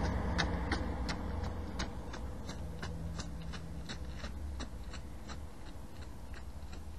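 Footsteps of a person jogging away along a paved road, about three quick steps a second, fading out after about five seconds. Under them, the low rumble of a passing car dies away.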